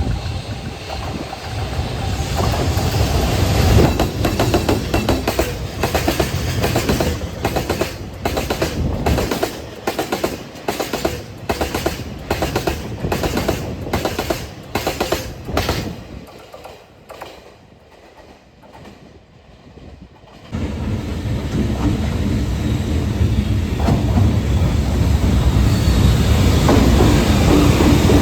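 Freight train wagons rolling past, their wheels clacking over the rail joints in a steady rhythm of about two clacks a second; the sound dies away about 16 seconds in. About 20 seconds in, a loud steady train rumble starts abruptly.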